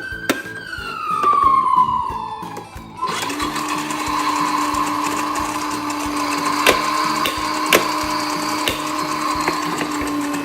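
Toy ambulance siren wailing, its pitch gliding down over about three seconds before it cuts off, followed by a steady, machine-like whirring hum. Background music with a steady beat plays underneath.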